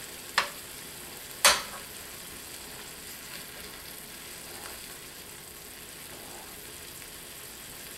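Sausage, apples and chicken broth sizzling steadily in a cast iron skillet while a spoon chops and stirs them. The spoon knocks sharply against the pan twice in the first couple of seconds.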